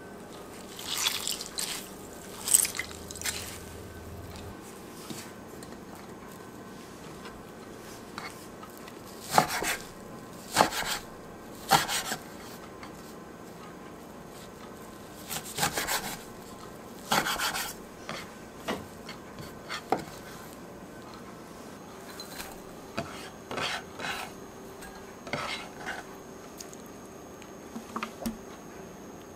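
Boiled gondre (Korean thistle greens) squeezed out by hand over a bowl of water, then cut with a kitchen knife on a wooden board in irregular short strokes through the wet greens.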